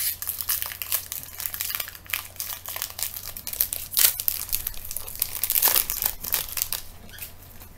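Plastic wrapper crinkling and crumpling in the hands, a dense run of crackly rustles that dies down about seven seconds in.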